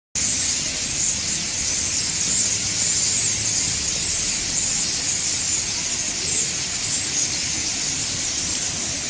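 A large flock of small birds massed in a tree, chirping all at once in a dense, continuous high-pitched chatter.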